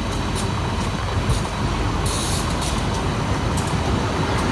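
A train running with a steady low rumble and scattered clicks, and a short hiss about two seconds in.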